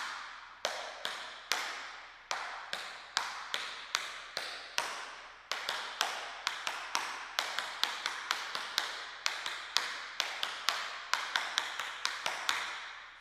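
Metal taps of tap shoes striking a wooden floor in a run of shuffle steps: crisp clicks in a steady rhythm, coming thicker from about halfway through, then stopping just before the end.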